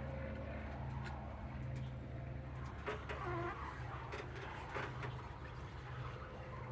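Electric drive motors of a homemade RC bulldozer running with a steady low hum, with scattered clicks and clatter from the machine working. A bird calls briefly about three seconds in.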